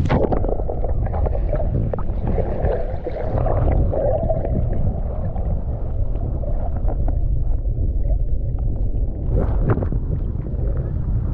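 Muffled underwater rumble and sloshing of seawater around a GoPro HERO9 held just below the surface, dull with no high end. About nine and a half seconds in, a few sharp splashes as the camera breaks the surface.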